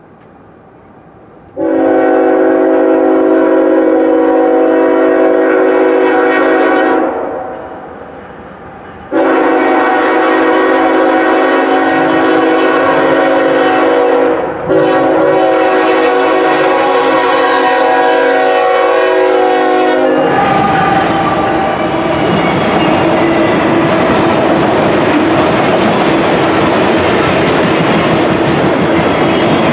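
Norfolk Southern GE ES44AC locomotive's air horn sounding a chord for a road crossing. A long blast of about five seconds comes first, then a short pause, then a longer blast of about eleven seconds with a brief break near its middle. After that the locomotive and its autorack cars pass close by in a loud steady rush of noise.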